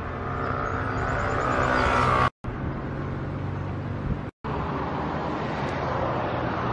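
Road traffic: cars driving past on the road beside the path, one growing louder to a peak about two seconds in. The sound is broken twice by short silences.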